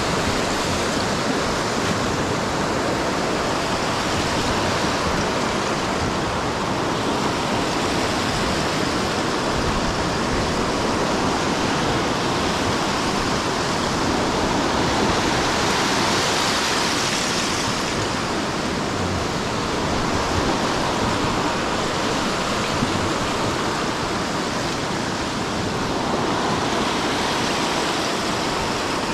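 Steady rushing noise of Lake Michigan surf and wind in a snowstorm, swelling and easing every several seconds.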